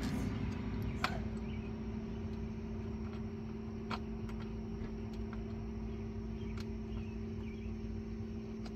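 A steady low mechanical hum, with three sharp metallic clicks spaced a few seconds apart as a bolt is worked by hand with a wrench under the four-wheeler.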